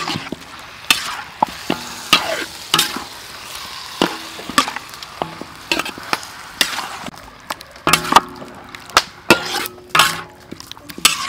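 Chicken drumsticks being mixed by hand in a sticky sauce inside a metal wok: wet squishing with irregular knocks of the legs against the wok, several of which leave a short metallic ring.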